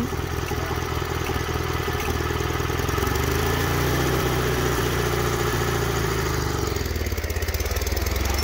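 1978 Sears GT/18 lawn tractor engine idling as it warms up, with the engine note growing slightly stronger about three seconds in.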